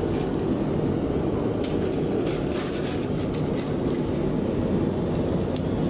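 Steady rushing cabin noise of a Boeing 787-9 airliner heard inside its lavatory, with crinkling of a plastic-wrapped pajama pack being handled from about one and a half seconds in.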